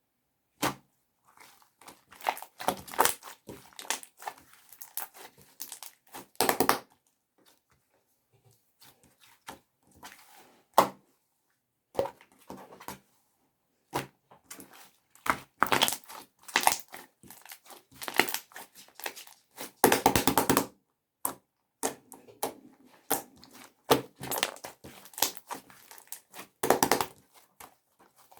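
Clear slime being squished and stretched by hand, giving irregular bursts of crackling and popping with short pauses between them.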